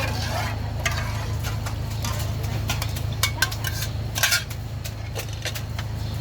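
Utensils, pots and bowls clinking and scraping at a noodle stall, a string of sharp clinks with the loudest cluster a little after four seconds in, over a steady low hum.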